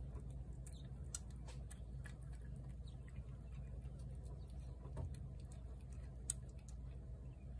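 Tabby cat chewing and lapping wet food from a plate, a run of small irregular wet clicks and smacks with one sharper click about six seconds in, over a faint steady low hum.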